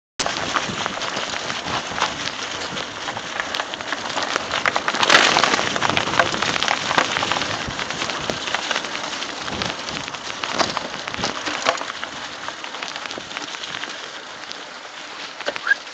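Mountain bike riding down a forest trail: a steady crackling rush of tyres over dry leaves and dirt, full of small rattling clicks from the bike, loudest about five seconds in.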